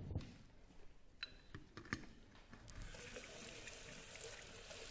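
A kitchen sink tap turned on a little over halfway in, water then running steadily into the sink as a hand is rinsed under it. A few light knocks come before it.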